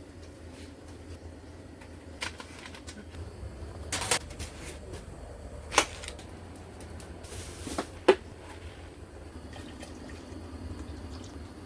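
Several sharp knocks and clatters, three louder ones a couple of seconds apart, over a low steady background rumble.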